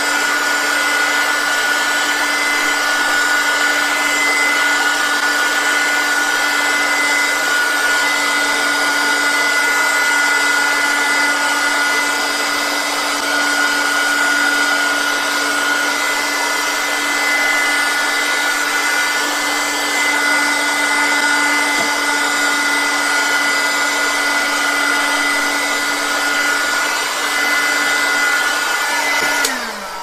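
Heat gun running steadily, blowing hot air onto a rubber refrigerator door gasket to soften it. Near the end it is switched off and winds down with a falling tone.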